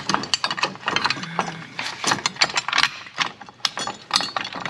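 Ratchet wrench clicking in quick, uneven strokes as a bolt is turned on the ski mount, with metal tool and hardware clatter.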